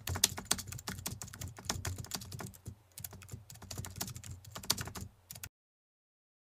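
Typing sound effect: rapid, irregular keyboard key clicks, several a second, that stop abruptly about five and a half seconds in.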